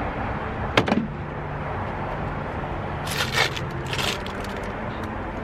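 Hand work on oil-change parts: two sharp metallic clicks about a second in, then rattling scrapes around three and four seconds in as the old oil filter and its parts are handled.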